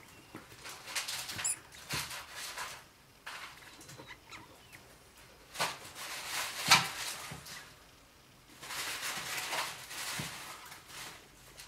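Degu rummaging in a nest of shredded tissue paper: bursts of paper rustling and crinkling, with a short sharp click about seven seconds in.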